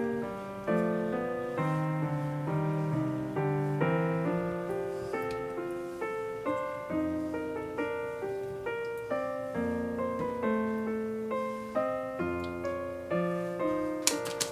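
Background piano music: a steady run of struck notes, each fading away. A few sharp clicks come in right at the end.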